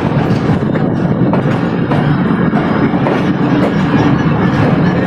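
Train running on the rails: a steady low rumble with scattered clicks of wheels over the track.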